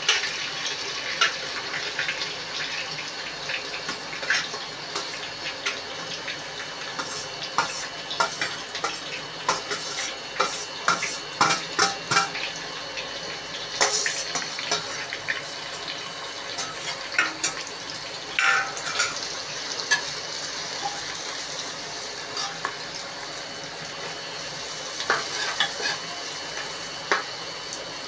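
Sliced onions frying in hot oil in an aluminium pressure cooker: a steady sizzle, with many clicks and scrapes from a metal slotted spoon tapping and stirring against the pot.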